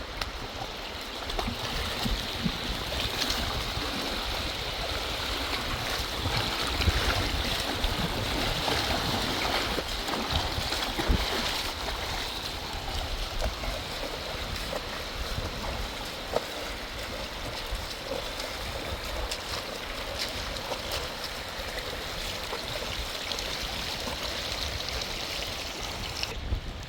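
Rushing water of a stream or river running high: a steady, noisy wash.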